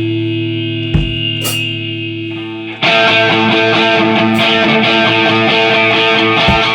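Distorted electric guitar: a held chord rings out, then about three seconds in a louder, denser heavy rock riff begins.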